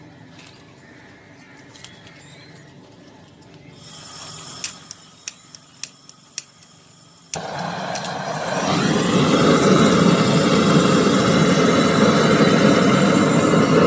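About six sharp clicks, then a brazing torch lights suddenly about seven seconds in and burns with a loud, steady rushing flame as it heats the copper pipe joint at the freezer's compressor for brazing.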